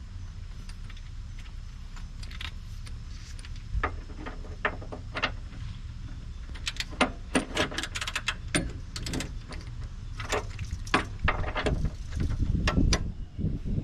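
Torque wrench and fittings clicking and clinking irregularly as suspension bolts are torqued down, with the clicks bunching in the middle and again near the end, over a steady low rumble.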